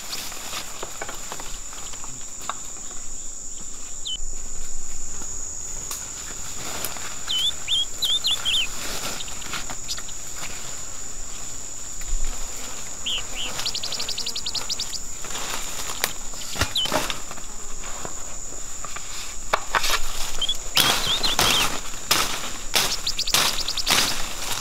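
Steady high-pitched drone of jungle insects, with a bird chirping a few short phrases. Footsteps crunch and rustle through dry leaf litter and undergrowth, getting busier near the end.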